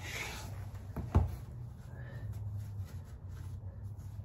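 Faint rubbing of a cloth rag wiping around the oil filter housing on a dirt bike's engine case, over a low steady hum. A single sharp knock about a second in.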